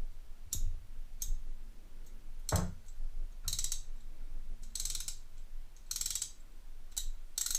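Craftsman hand ratchet being swung back and forth in short runs, its pawl clicking finely over the gear teeth, with one knock about two and a half seconds in. The ratchet is refurbished with new internal parts and sounds smooth, without the skipping of the worn one.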